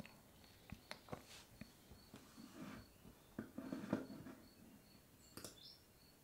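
Near silence: room tone with a faint, high-pitched chirp repeating about twice a second, and a few soft clicks and rustles.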